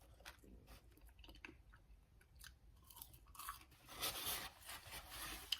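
A person chewing fried food with faint crunching and mouth clicks, louder in the second half.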